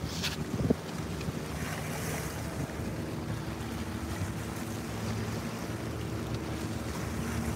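Wind buffeting the microphone and small waves washing against a rock revetment, over a steady low hum, with a couple of light knocks in the first second.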